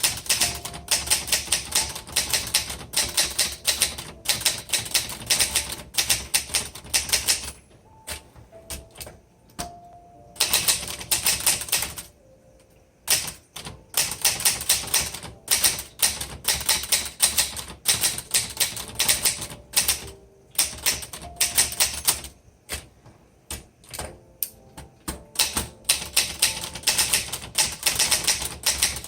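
1960s Underwood 21 manual typewriter being typed on: quick runs of sharp keystrokes, the typebars striking the platen, stopping briefly several times between runs.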